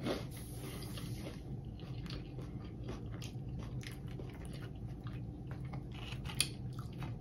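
A person chewing crunchy fried hot Cheeto-crusted food: a run of small, irregular crunches, with one sharper crunch a little after six seconds.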